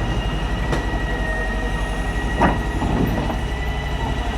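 Heavy diesel machinery running hard under load, a low fast-pulsing engine rumble with a steady high whine over it, and sharp metallic knocks about a second in and again about two and a half seconds in.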